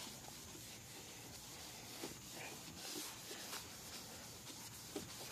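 Faint hand rubbing on a plastic headlight lens, working restorer compound into the hazed surface, with a few light scratchy strokes.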